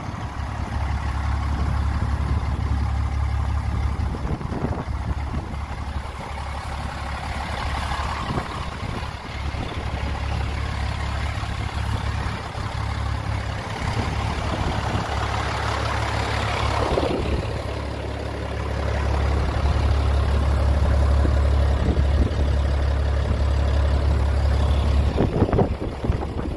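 Wind buffeting the microphone in the open, a loud uneven rumble with gusts that swell up about a third and again about halfway through.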